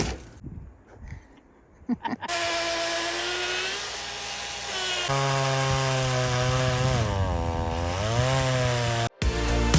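A two-stroke chainsaw engine running hard, starting about two seconds in. Its pitch sags as it bogs in the cut and then climbs back. Near the end it cuts off abruptly and music begins.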